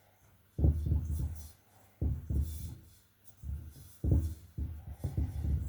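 Dull, low thumps about once a second, five in all, as butter is rubbed into flour by hand in a mixing bowl and the bowl knocks and shifts on the counter.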